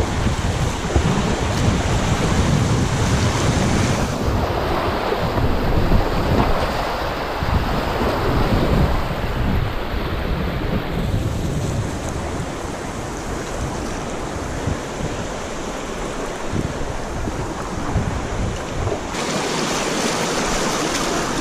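Rushing river water with wind buffeting the microphone in a low rumble; the noise shifts abruptly in character a few times.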